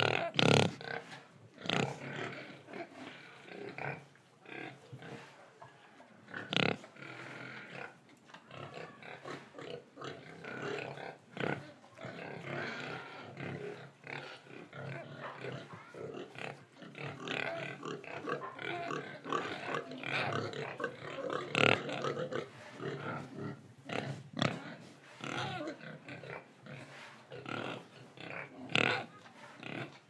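Young pigs making continual irregular noises, mixed with many sharp clicks and knocks. A few much louder sudden sounds stand out among them.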